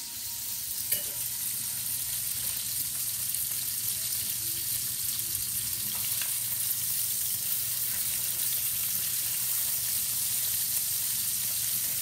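Chicken thighs and hot sausages frying in oil in a stainless steel skillet, a steady sizzling hiss, with one brief click about a second in.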